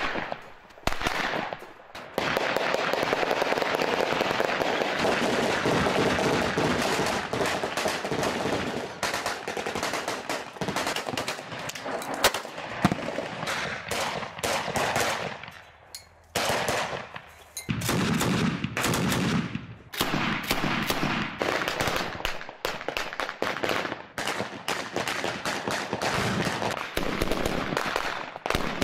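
Rapid automatic gunfire from several assault rifles, shots packed close together and overlapping, with a short pause about halfway through.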